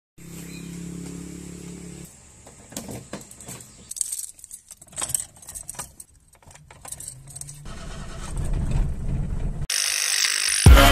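A steady low hum for about two seconds, then keys jangling and clicking as someone handles them getting into a car. After that a rush of noise builds up, and loud electronic intro music kicks in right at the end.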